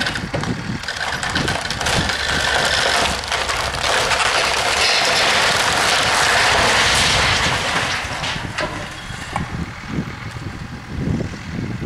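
Old timber-frame barn with a metal roof collapsing as tractors pull it down: a long crash of timbers and roofing, loudest midway and fading after about eight seconds, with tractor engines running.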